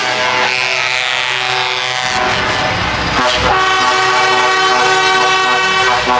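Truck air horns sounding in long, sustained multi-tone chords, several horns overlapping and changing pitch. A low truck engine rumble joins about two seconds in.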